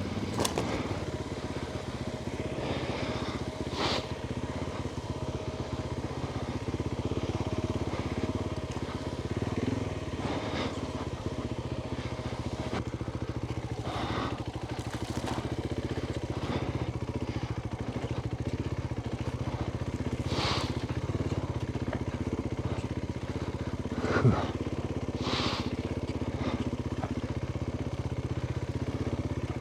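Adventure motorcycle engine running at steady low revs while riding an off-road trail, with occasional short knocks and clatter.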